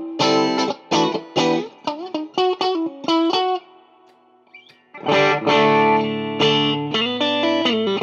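Fender Player Plus Stratocaster HSS electric guitar being played as a sound test: quick picked single notes and short phrases at first. It then fades to a near pause with a faint click, and from about five seconds in plays ringing strummed chords.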